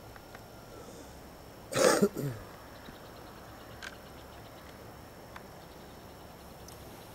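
A person coughing close to the microphone about two seconds in: a short, loud cough in two quick bursts that trail off downward.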